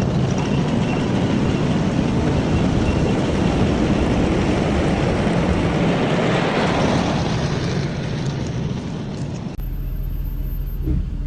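Loud, steady vehicle noise. Near the end it cuts abruptly to a lower, steady engine hum.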